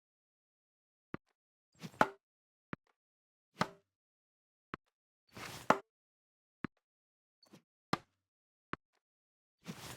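A series of tennis ball hits, about one a second, each a sharp pop. The loudest hits follow a short rushing swish and have a brief ring to them, with lighter ticks in between.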